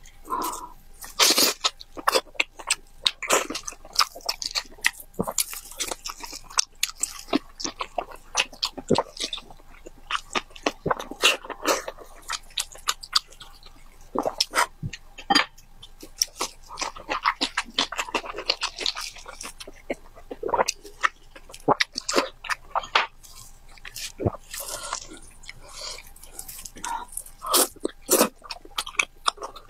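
A person chewing and biting into braised pig's head, tearing off and crunching the pig's ear cartilage, in a rapid, irregular run of sharp clicks and crackles.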